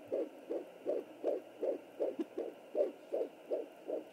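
Fetal heartbeat at 12 weeks of pregnancy, picked up by a Sonoline B 3 MHz handheld Doppler. It is a fast, even pulse of nearly three beats a second, a clean beat with no swishing, over a faint hiss.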